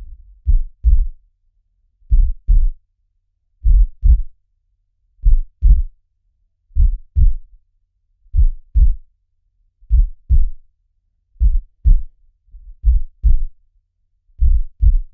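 Heartbeat, a slow steady lub-dub: ten double thumps about one and a half seconds apart, low and dull.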